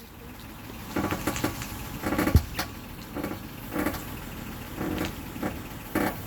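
A 2007 Honda Odyssey's 3.5 V6 idling while the steering is turned, with about nine short creaking noises at uneven intervals from the front end. This is the noise the van makes when the wheel is turned.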